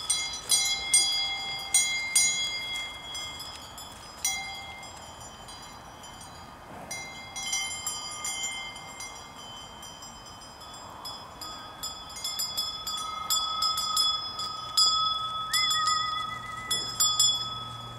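Several cowbells on grazing cows' collars clanking and ringing at different pitches in irregular strokes as the cows move their heads. The clanking thins out for a few seconds midway and grows busier again near the end.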